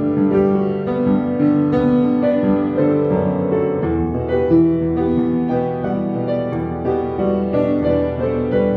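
Piano played with both hands: a melody over a chordal accompaniment, with notes held and overlapping.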